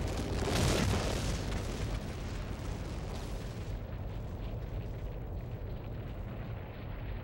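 An explosion: a sudden blast about half a second in, then a long low rumble whose hiss dies away over a few seconds.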